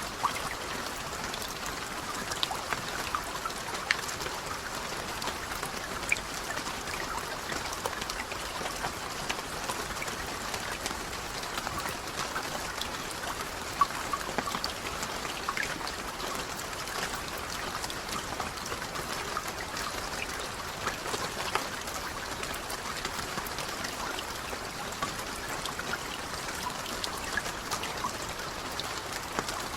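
Steady rain falling, a dense wash of drops with sharper single drop hits standing out every second or two.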